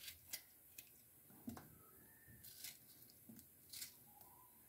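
Near silence, broken by a few faint soft clicks and taps as food is handled at the food processor bowl.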